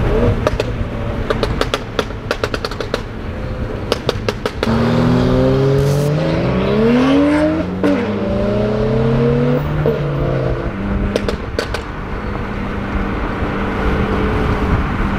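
Exhaust of a burble-tuned BMW 335i turbocharged straight-six popping and crackling on overrun, with a rapid string of pops near the start and again about eleven seconds in. In between, a car engine revs up under acceleration, with a gear change about eight seconds in.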